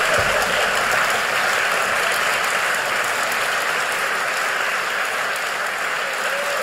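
Live audience applauding: dense, steady clapping that eases off a little over the seconds.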